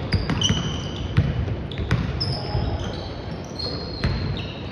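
Basketball bouncing on a hardwood gym court during play, with irregular thuds a second or so apart. Short high squeaks, typical of players' sneakers on the floor, come repeatedly throughout.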